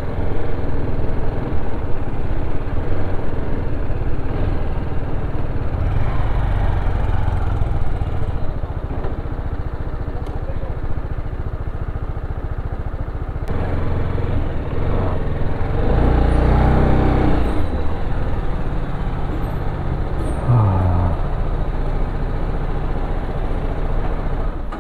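TVS Apache RR310 motorcycle's single-cylinder engine running while the bike is ridden slowly through a street, a steady rumble with road noise.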